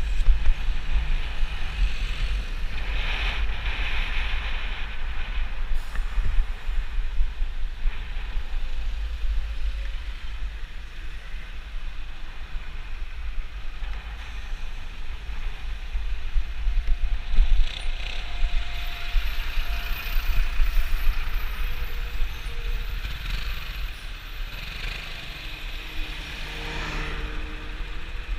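Low wind rumble on the microphone of a camera riding through dense city traffic, over the steady noise of the surrounding cars, buses and vans, which swells a few times as vehicles pass close by.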